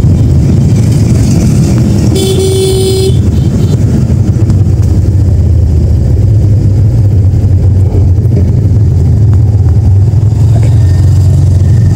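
TVS Metro Plus 110cc single-cylinder motorcycle riding under a steady low rumble of engine and wind, the engine running on the last of its measured fuel and jerking. A vehicle horn sounds once for about a second, about two seconds in.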